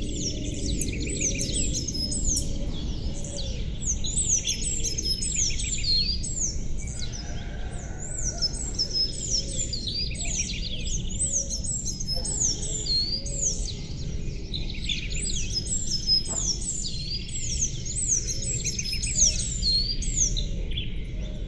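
Chorus of small songbirds chirping, many quick high chirps that sweep downward and repeat over and over, over a steady low background noise.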